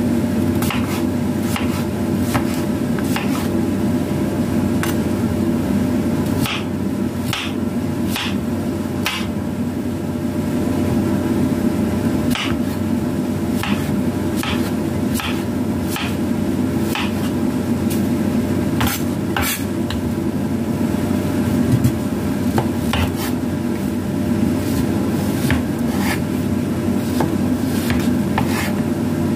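Kitchen knife chopping young papaya into cubes on a wooden cutting board: irregular knocks of the blade against the board, about one every second, over a steady low hum.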